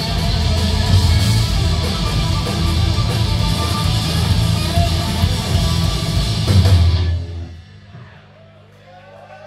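Live rock band of two electric guitars, bass guitar and drum kit playing loudly, then stopping abruptly about seven seconds in as the song ends. Faint crowd voices follow near the end.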